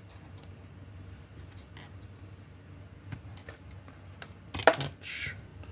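Light clicks from handling a small plastic electromagnetic launcher kit, then one sharp click near the end followed by a brief rustle.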